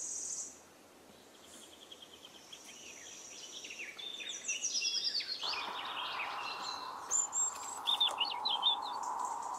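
Small songbirds chirping and singing in woodland, with many short quick calls throughout. A steady high-pitched trill stops about half a second in, and a steady hiss joins in after about five seconds.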